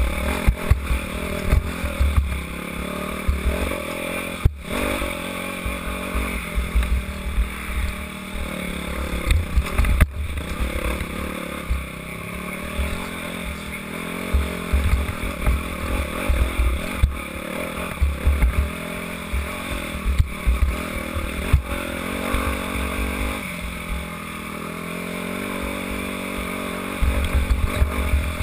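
Dirt bike engine revving up and down as the throttle opens and closes over a rough trail, with gusty rumble and sharp knocks from the bumps picked up by the helmet-mounted microphone.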